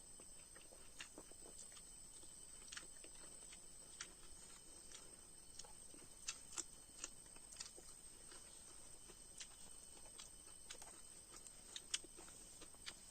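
Quiet eating sounds: soft, irregular mouth clicks and smacks of chewing, a few sharper ones about six and twelve seconds in, over a faint steady high whine.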